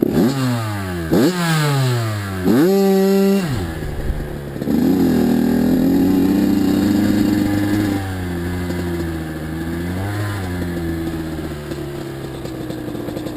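Kawasaki KX85 two-stroke dirt bike engine revving up and down sharply several times in the first few seconds, then running on at a steadier pitch, with one brief dip and rise later on.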